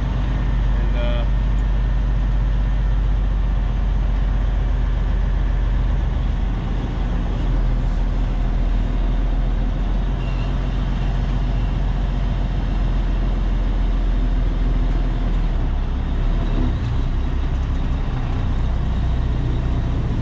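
Semi truck's diesel engine running steadily as the truck rolls slowly, heard from inside the cab as a deep continuous drone; the engine note shifts about sixteen seconds in.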